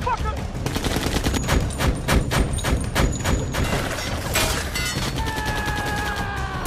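Rapid bursts of automatic gunfire, many shots in quick succession, heard through a film's sound mix. Near the end a held tone of several notes slides slightly downward.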